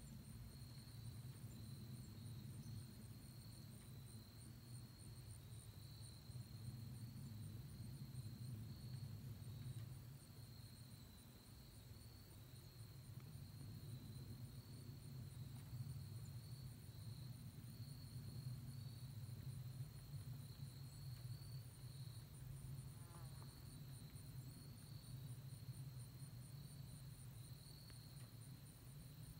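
A faint, steady low rumble, with insects trilling steadily at a high pitch over it.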